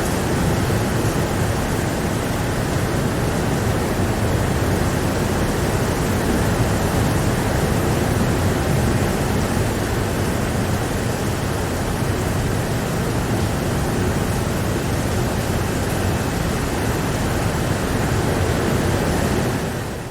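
Steady heavy rain: a dense, even hiss with a deep rumble underneath. It drops out abruptly for an instant near the end.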